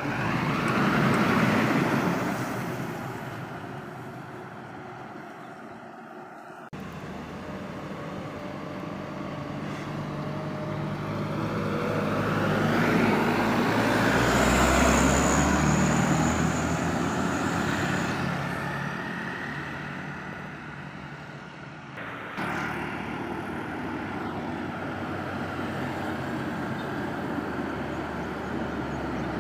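Heavy road vehicles passing by one after another. One passes about a second in, then a bigger one with a low engine drone builds up, peaks near the middle with a high steady whine for a few seconds, and fades. Road traffic noise continues throughout.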